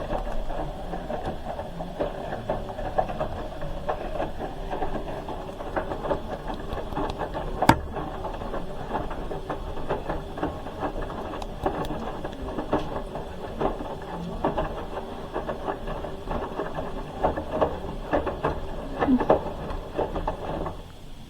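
Hoover H-Wash 300 Plus front-loading washing machine turning its drum during the wash, the load tumbling and sloshing with a patter of small knocks and one sharp thud about eight seconds in; the drum starts at the beginning and stops at the end.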